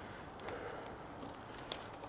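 Bicycle rolling slowly on a dirt trail, with a faint crunch of the tyres and a few sparse small clicks, under a thin steady high-pitched tone.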